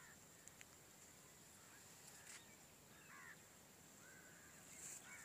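Faint outdoor near-silence with scattered bird calls: short chirps here and there and a quick trill about three seconds in.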